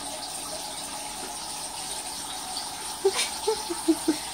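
Turtle-tank water filter running: a steady rush of water with a faint constant hum. About three seconds in, a handful of short water plops and a click are heard.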